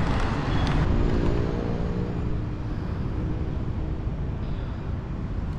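Steady low rumble of outdoor background noise, with a few faint clicks in the first second.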